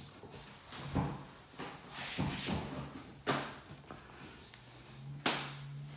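Clothing rustling and a few sharp knocks and bumps as a man changes into a jockstrap, with a faint low hum underneath.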